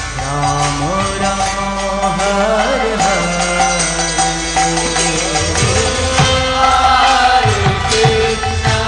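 Devotional kirtan: voices chanting a melodic mantra together with drum and jingling hand-cymbal percussion, the beat growing stronger after about five seconds.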